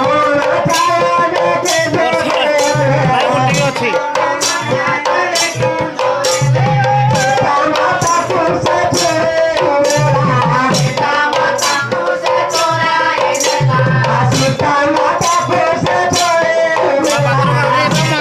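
Live folk music: a hand drum and jingling, rattling hand percussion keeping a steady beat of about two strokes a second, with voices singing a melody over it.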